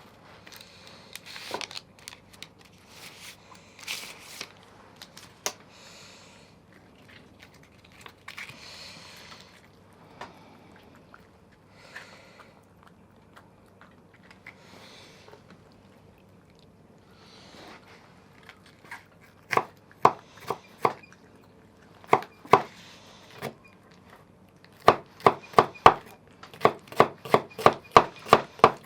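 Kitchen handling and rustling noises, then a knife chopping on a cutting board: a few separate strikes, then a quick run of about three chops a second near the end.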